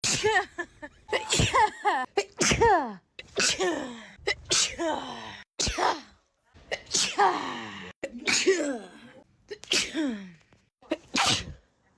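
A person sneezing over and over, about ten sneezes in quick succession, each a short burst with a voiced 'achoo' that falls in pitch. The sneezes are spliced together, with abrupt cuts to silence between some of them.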